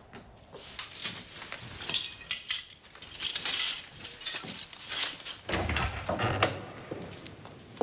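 Silver cutlery clinking and rattling in repeated handfuls as it is gathered up, followed near the end by a dull low thud.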